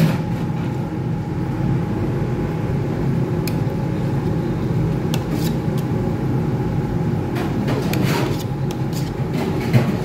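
A steady low mechanical hum, with a few short light metallic clicks and scrapes from a metal pot and utensil against a stainless steel tray as cooked rice is tipped out.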